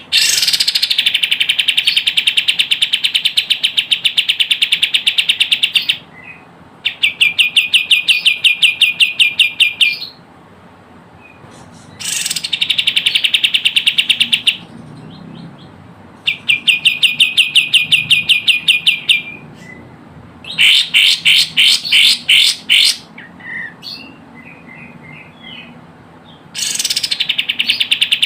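Kapas tembak calls: runs of rapid, sharp repeated notes in about six bursts of a few seconds each, with short pauses between. This is the noisy, agitated call used as a lure to draw in wild birds of the species.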